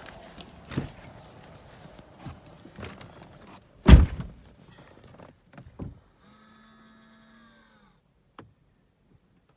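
A car door shutting with one heavy thunk about four seconds in, after some smaller knocks and handling sounds. A short pitched tone follows, falling slightly in pitch, then a single click.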